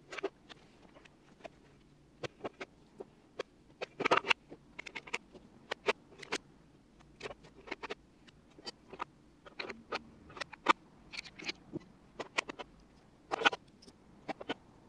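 Scattered, irregular clicks and knocks of hand tools being handled and set into an old metal toolbox, with a few heavier knocks about four seconds in and near the end.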